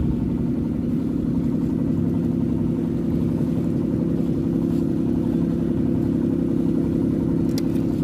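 An engine running steadily at an even speed: a constant low hum with a rumble beneath it. A few faint clicks near the end.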